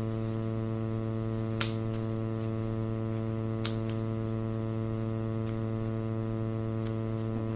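Steady electrical mains hum, with a few sharp snips of scissors cutting an ostomy wafer; the loudest snip comes about one and a half seconds in.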